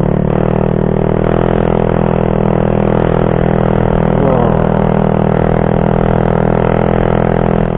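Motorcycle engine running steadily at an even pitch while riding at a constant speed.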